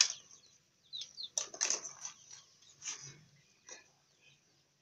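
Several short animal calls, one after another, over the first four seconds.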